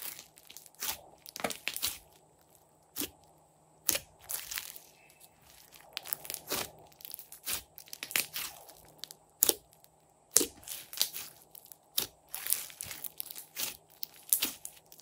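Pink floam slime, full of small foam beads, being squeezed and kneaded by hand: irregular crunchy crackles and sharp pops, coming in clusters with short quiet gaps.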